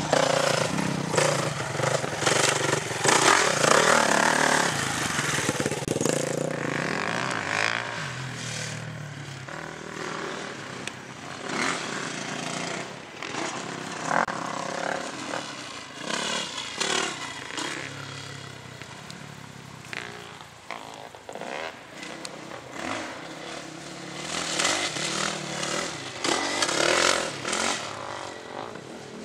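450cc four-stroke motocross bikes revving up and down as they ride the track, engine note rising and falling over and over. Loudest in the first six seconds, then fainter with repeated surges.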